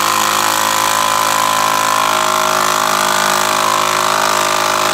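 Milwaukee cordless screwdriver running steadily, driving a screw down through a ski. Its motor gives one even whine that holds its pitch throughout.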